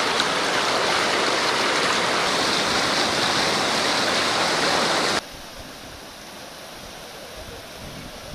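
Floodwater rushing across a road in a loud, steady rush. About five seconds in it cuts abruptly to a quieter, steady rush of water.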